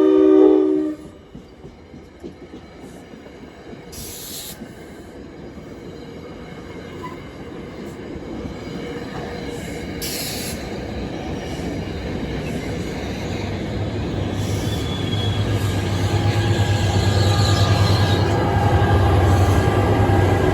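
A train horn sounds and cuts off about a second in. Then a train approaches on the track, growing steadily louder, with a low rumble and high wheel squeal over the second half.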